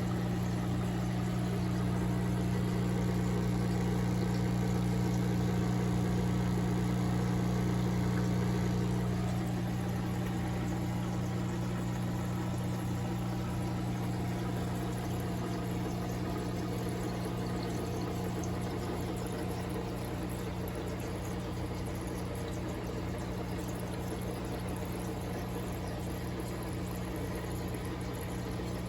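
Aquarium filter pump humming steadily, with water pouring and trickling into the tank. About nine seconds in, part of the mid-pitched noise drops away and the sound gets a little quieter.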